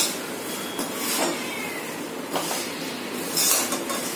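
Spatula stirring and scraping dry flattened rice (poha) and boondi around a metal kadhai, with a few louder scrapes and clinks against the pan, as the chivda is dry-roasted on a low flame until crisp.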